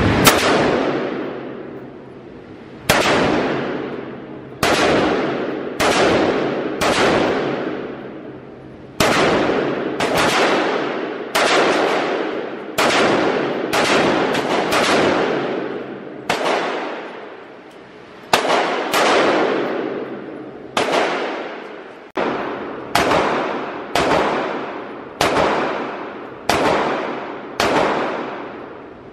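AR-15 rifle fired one shot at a time: some two dozen single shots at an uneven pace, about a second apart, each ringing out in a long echo off the walls of the indoor range.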